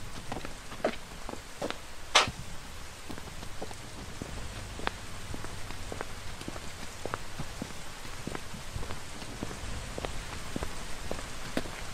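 Rain falling: a steady hiss with many separate drops landing as distinct ticks, one much louder drop about two seconds in.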